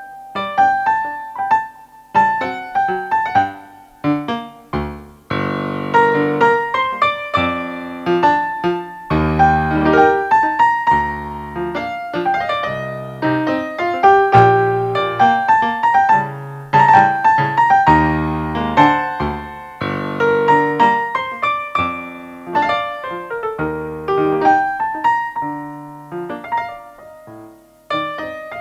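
Korg digital piano played solo: quick runs of notes over chords, with stretches of full chords reaching down to deep bass notes, and short breaths in the playing about five seconds in and near the end.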